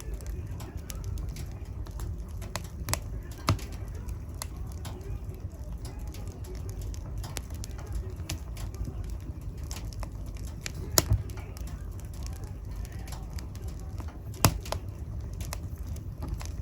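Wood fire burning in a fireplace: a steady low rumble of flame with scattered crackles, and three louder, sharper pops spread through it.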